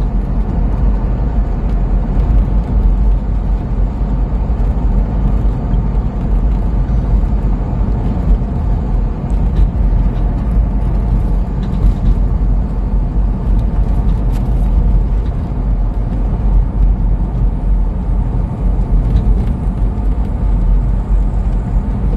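Steady engine and road noise heard from inside a moving car: an unbroken low rumble.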